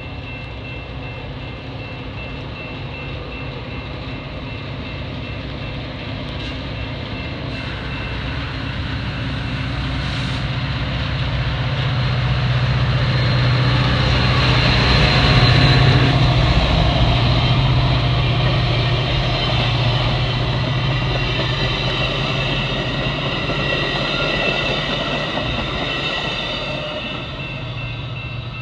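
Metra EMD F40PH diesel locomotive and its bilevel commuter cars passing on the track. The engine drone and rail noise build to their loudest about halfway through, then fade as the train moves away.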